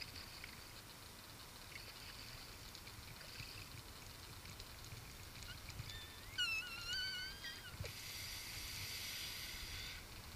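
Fishing reel's drag whining as a hooked redfish takes line, rising in pitch about six seconds in, wavering, then buzzing steadily for about two seconds. Faint splashing from the fish thrashing at the surface runs underneath.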